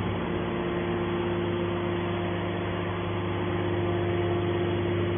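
Hydraulic can baler's motor and pump running with a steady hum.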